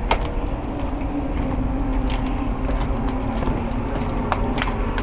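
Passenger ferry under way, heard from the open deck: a steady low rumble with a constant hum from the ship's engines and machinery. A few short faint ticks sound over it.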